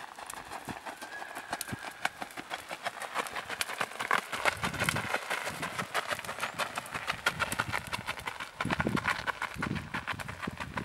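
A Tennessee Walking Horse's unshod hooves striking a gravel road in a fast, even four-beat gait: a quick, continuous run of hoofbeats.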